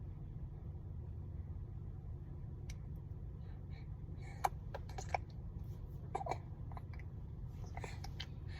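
A few brief, soft baby noises from a four-month-old: short clicks and little vocal sounds about halfway through and again near the end, over a steady low rumble inside the car.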